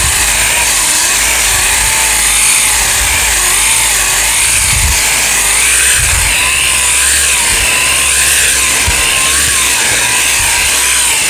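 An 8-inch orbital sander running continuously, sanding down short-strand fibreglass body filler with 40-grit paper. Its motor whine wavers up and down in pitch under the coarse grinding noise. Where the filler is thin, the sander breaks through to bare sheet metal.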